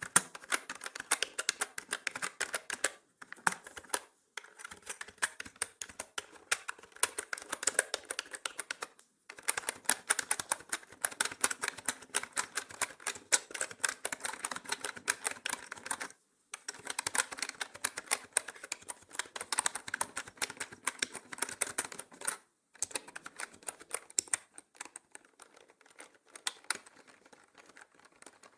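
Typing on a mechanical keyboard: rapid key clicks in runs of several seconds, broken by brief pauses, growing softer near the end. The sound is processed as 8D audio, panned around the listener.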